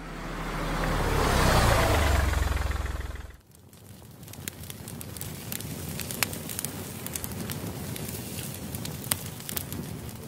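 A swelling rush of noise over a low rumble that cuts off suddenly about three and a half seconds in, followed by steady crackling with scattered sharp clicks.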